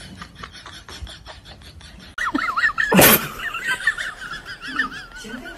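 A fast, even ticking for about two seconds, then a puppy whining in high, wavering squeals. One sharp, loud thump comes about three seconds in.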